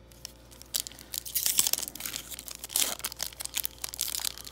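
A Pokémon trading-card booster pack's foil wrapper crinkling and tearing as it is ripped open by hand, in a quick, irregular run of sharp rustles that starts under a second in.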